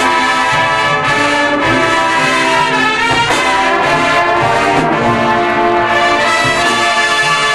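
High school marching band's brass section playing loud, full held chords that change every second or two.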